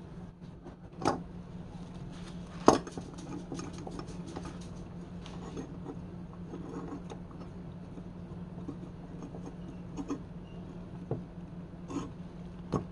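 Hard objects being handled and set down during hands-on restoration work: scattered clicks and knocks, the loudest about a third of the way in and a cluster near the end, over a steady low hum.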